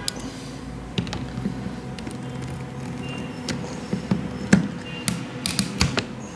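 Sharp clicks and taps of a screwdriver and pliers against the plastic switch housing of an electric kettle as the burnt power switch is pried out. The clicks are scattered at first and come closer together in the last two seconds, over a steady low hum.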